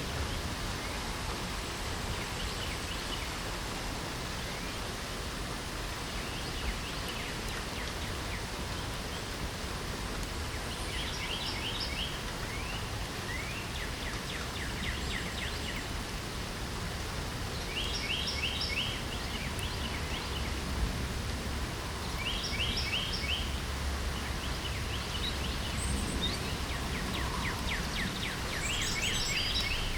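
Steady rain hiss with songbirds singing. From about ten seconds in, short phrases of quick repeated notes recur every three to four seconds.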